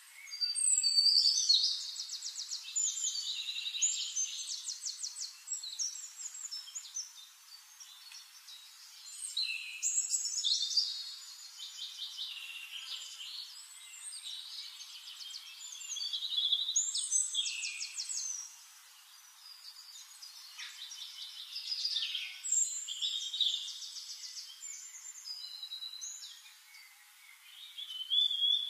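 Birdsong: high-pitched bouts of rapid trills and chirps, coming back every few seconds with short lulls between.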